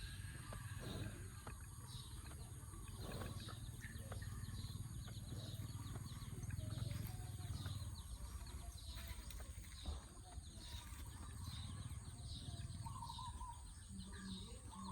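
Outdoor farm ambience: many small birds chirping over a steady low rumble, with no clear cattle call.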